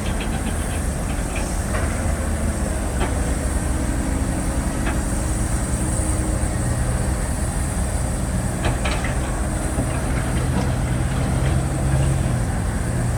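Heavy diesel machinery engines running steadily, a low rumble with a hum that grows a little louder near the end, and a few light clanks.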